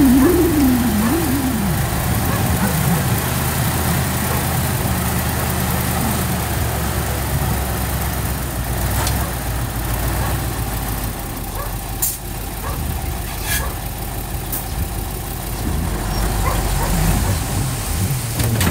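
Heavy-equipment diesel engine running steadily, from the bulldozer or dump trucks at work. A whine rises and falls in the first second or so, and a few sharp knocks come around the middle.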